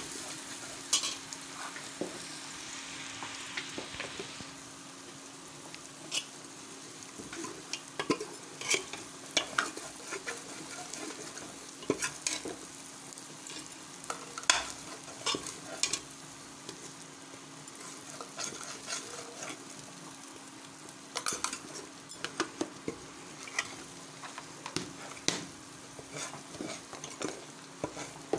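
Spice paste (masala) frying and sizzling in oil in a pressure cooker pot, while a metal spoon stirs and scrapes it, with frequent clinks and knocks against the pot. A faint steady hum runs underneath.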